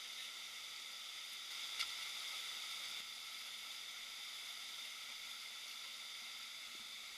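Steady hiss of rushing river water over shallow rapids, with one short sharp click about two seconds in.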